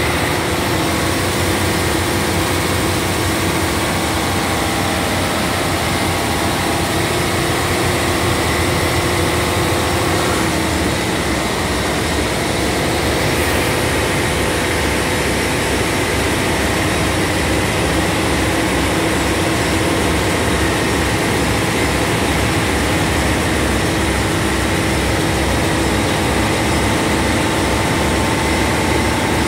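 Large Niigata diesel engine running steadily, loud, with a low, even pulsing that shifts slightly about ten seconds in.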